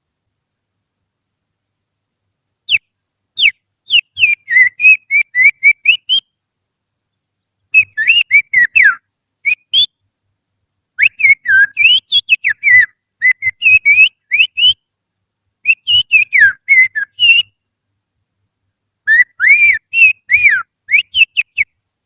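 Finger whistling imitating oriental magpie-robin (kacer) song: quick runs of sliding, rising and falling whistled notes in five phrases broken by short pauses.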